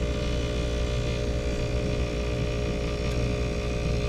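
ClimateMaster geothermal heat pump running with a steady mechanical hum. The low hum carries a few steady tones above it. The unit is running normally after being reset from a low-pressure lockout.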